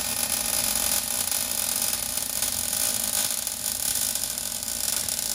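Welding arc crackling steadily as a catalytic converter is welded into a car's exhaust pipe.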